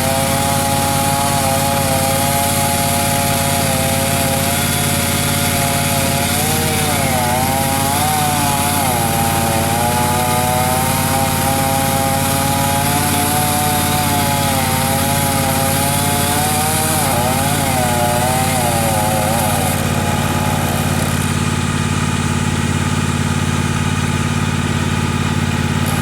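Chainsaw engine running steadily, with a higher whine that wavers up and down in pitch and drops away about 21 seconds in, leaving the steady engine drone.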